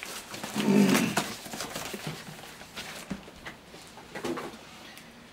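Cardboard box handled: flaps rustled shut and the box pushed down into a larger carton about a second in, followed by a few light knocks and footsteps.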